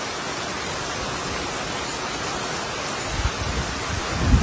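Heavy rain falling in a steady hiss. Near the end a low rumble builds and grows loud.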